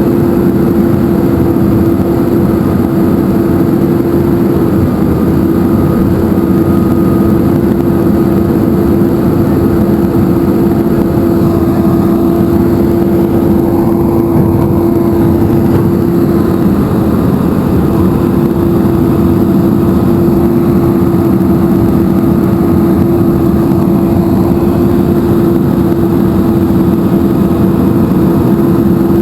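Engine of a heavy ditch-cleaning machine running steadily, a loud constant hum that holds one pitch.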